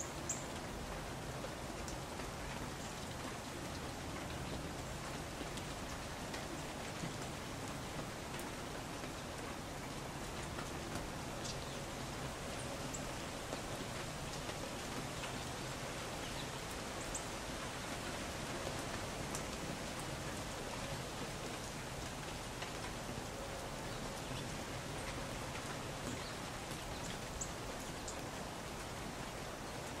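Steady, even outdoor hiss with no changes in level, with a few faint, very short high chirps from small birds scattered through it.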